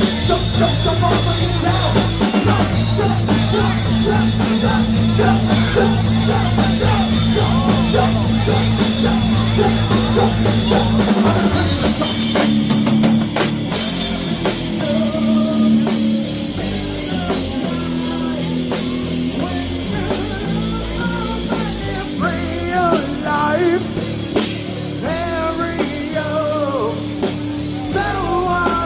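Live rock band playing, with drums, guitar and singing. About eleven seconds in, the heavy low end and cymbals drop away, leaving a lighter, sparser backing under the singer.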